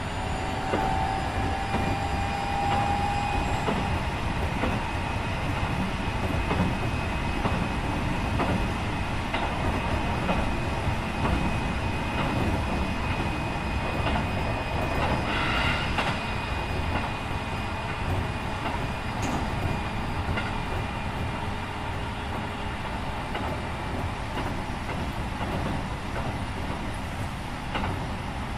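Running noise inside a Keikyu 1500 series electric train car fitted with Mitsubishi IGBT-VVVF equipment, as it travels along the track. A thin motor whine rises in the first few seconds and fades, and a brief rasp of wheel or rail noise comes about halfway through.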